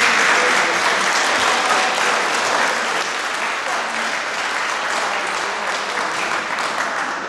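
Ringside audience clapping. The applause starts suddenly, is loudest at first and eases off a little.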